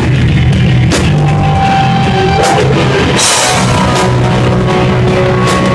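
Hardcore punk band playing live and loud: heavily distorted guitars and bass over a drum kit, with cymbal crashes about once a second and a longer cymbal wash about three seconds in.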